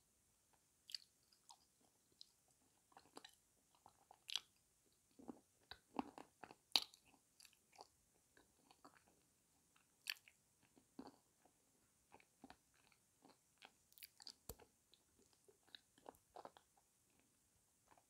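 Close-up mouth sounds of a person biting and chewing soaked chunks of grey edible clay: irregular crunches and short clicks, the loudest about seven seconds in.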